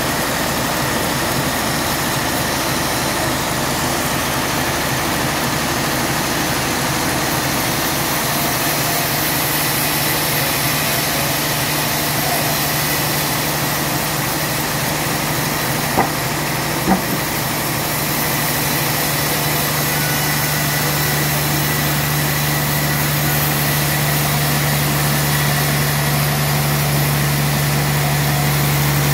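Large band sawmill running steadily as its blade cuts through a log of suar wood, with a low motor hum that strengthens about a third of the way in. Two sharp knocks about a second apart past the middle.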